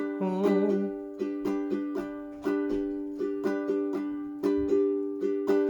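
Ukulele playing chords, in a steady rhythm of strokes that each ring out and fade.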